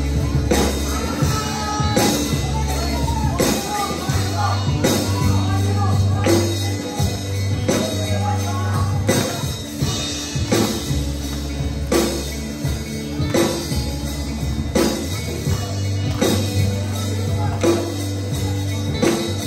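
Live rock band playing, with electric guitars, bass guitar and a drum kit keeping a steady beat under a male lead singer. Audience voices singing and shouting along.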